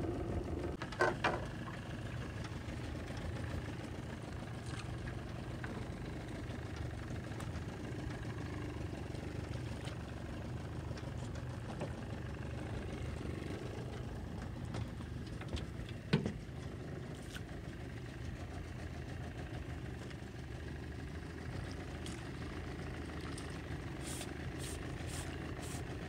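Small boat outboard motor idling steadily, with a few sharp knocks and clicks about a second in, around the middle and in a quick run near the end.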